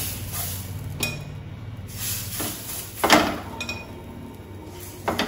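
Kitchen utensils and cookware clinking and knocking against a pan and bowl, a few separate knocks with the loudest about three seconds in, over a steady low hum.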